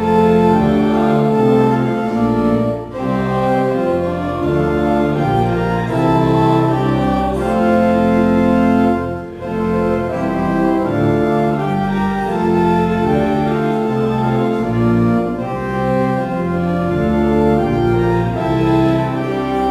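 Church organ playing a hymn in sustained, full chords, with short breaks between phrases about three and nine seconds in.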